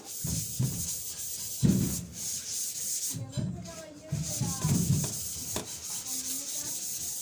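Sanding the sheet-metal body of a washing machine: abrasive rasping against the metal panel, running on with short breaks.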